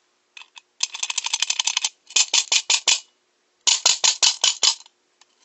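Knocking sound effect for knuckles drumming on a door frame, made by rapping on a hard surface: a fast drumming roll about a second long, then two shorter runs of separate raps.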